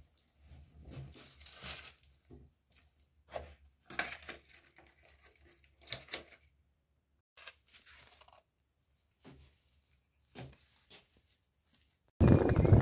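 Scattered rustling and crinkling of clothing and a clear plastic bag being handled, in short separate bursts with quiet gaps between. Near the end it cuts abruptly to a loud, steady outdoor rumble.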